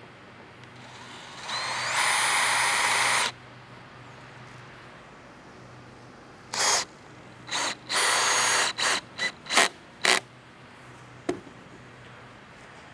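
Cordless drill driving lag screws through a metal post base bracket into a wooden deck post. It makes one long run of about two seconds, then several shorter runs and a string of quick bursts about two thirds of the way in.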